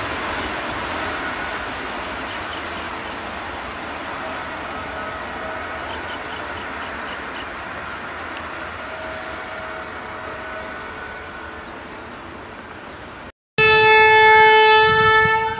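A train's rolling noise, a steady rumble and hiss, slowly fading as the train draws away. After a brief break, a WAP-7 electric locomotive's horn sounds loudly near the end, one long blast that is still going at the close.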